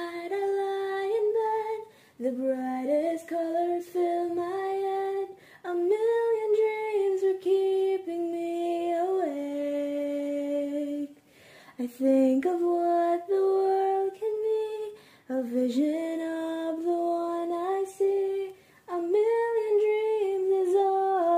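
A female voice singing a slow melody solo, in long held notes with short breaks between phrases.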